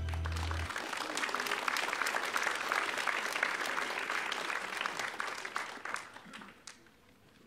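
A held chord of recorded music cuts off just under a second in, followed by the congregation applauding, the clapping fading out over about six seconds.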